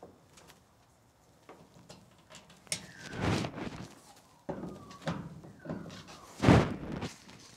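Hands working a plastic weatherproof outdoor power point on a corrugated metal wall: a run of clicks, scrapes and knocks, with a few short squeaks, the loudest knock about six and a half seconds in.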